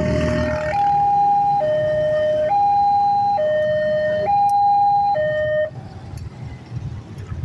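Railroad crossing's electronic warning alarm alternating steadily between a low and a high tone, each held a little under a second. It cuts off suddenly near the end, leaving the low running of motorcycle engines.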